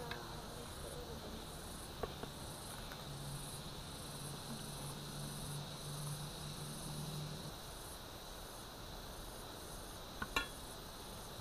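Insects chirping in a steady, high-pitched, pulsing chorus. A low hum sounds for a few seconds in the middle, and a short, sharp clatter comes near the end.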